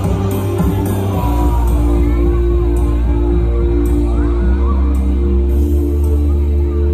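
Loud stage-show music of held chords over a deep sustained bass, the bass growing heavier about a second in.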